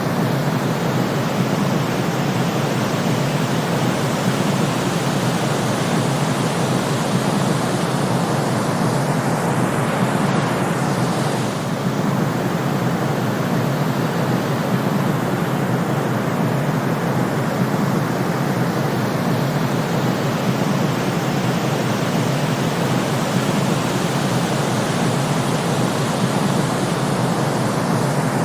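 Steady white-noise sleep track: an even, unbroken hiss that is fuller in the low and middle range than at the top, with no rhythm or change.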